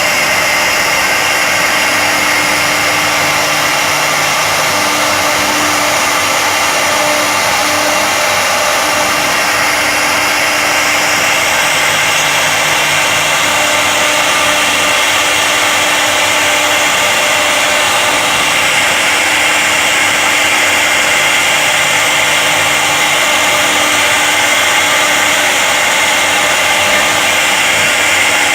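CNC wood router running, its spindle giving a steady high whine over a loud, even rushing noise.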